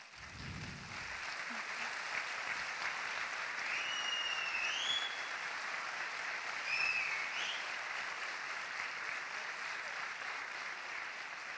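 Concert audience applauding steadily, swelling up in the first second or so. Two rising whistles cut through the clapping near the middle.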